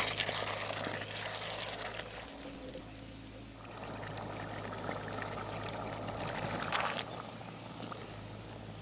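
Liquid pouring and trickling, over a steady low hum.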